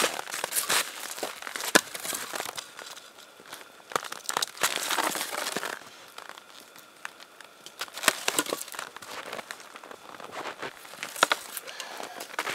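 Crunching steps of wooden snowshoes in snow, then shuffling and rustling as split firewood is set down and the snowshoes are taken off, with a few sharp knocks.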